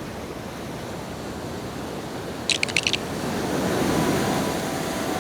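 A steady rushing noise, like surf or wind, that swells about three to four seconds in, with a quick run of five or six sharp clicks about two and a half seconds in.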